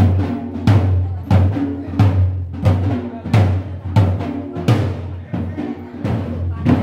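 Large double-headed dhol beaten in a steady rhythm: a heavy deep stroke about every two-thirds of a second, with lighter strokes between.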